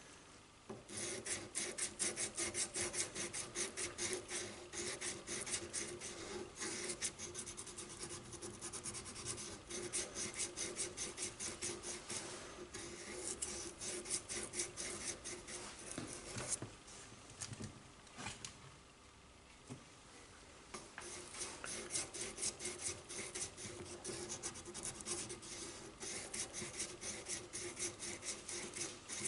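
Sandpaper wrapped on a rod being stroked quickly back and forth by hand against the steel throat and feed ramp of a .45 1911 barrel, a dry rapid rasping. It is polishing out tool marks and scratches. The strokes begin about a second in, pause briefly about two-thirds of the way through, then resume.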